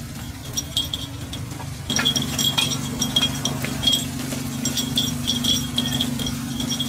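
Metal takoyaki picks clinking and scraping against a cast-iron takoyaki pan as the balls are turned, many quick ringing clicks, over a steady low hum that gets louder about two seconds in.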